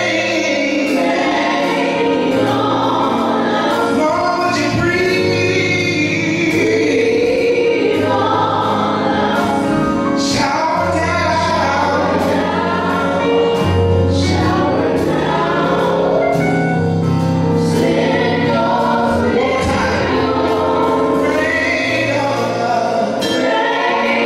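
A women's gospel praise team singing together live, accompanied by keyboard with held bass notes and a drum kit keeping a steady beat.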